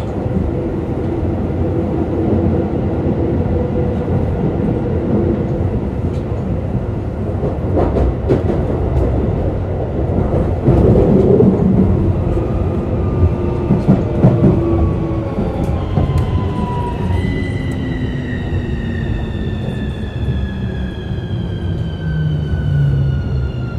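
Running sound of a Keikyu New 1000 series electric train: rumbling track noise with knocks from the rail joints. From about two-thirds of the way in, the Siemens VVVF inverter and traction motors whine in several tones that fall steadily in pitch as the train slows under braking.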